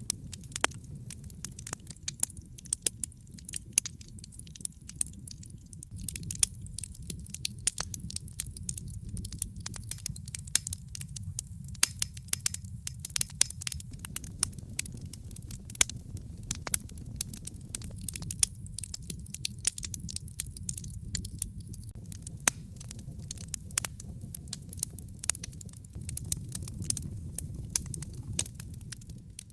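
Wood fire crackling and popping: irregular sharp snaps, a few much louder than the rest, over a steady low rumble of the flames.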